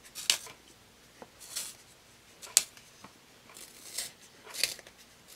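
Paper Mate Mirado Black Warrior wooden pencil being twisted in a round X-Acto hand-turn blade sharpener: short dry scraping strokes, about one a second, as the blade shaves the wood.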